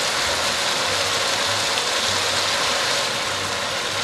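Chicken pieces frying in ghee and onion-spice masala in a wok, giving a steady sizzle as the masala is fried (bhuna).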